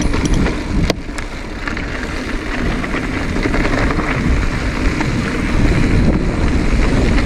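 Wind buffeting the handlebar camera's microphone while an electric mountain bike rolls along a dirt trail, with tyre and trail noise underneath. A sharp click or rattle comes about a second in.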